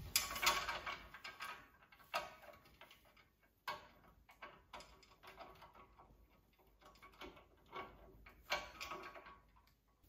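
Screws being turned with a hand screwdriver into a metal TV-stand mounting bracket: irregular small metallic clicks and scrapes.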